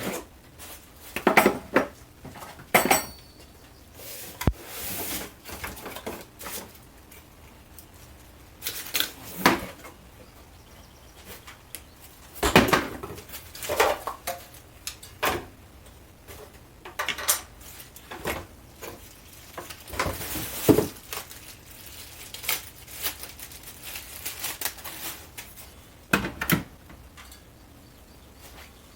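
Irregular clinks, knocks and short rustles of objects being handled, with no motor running.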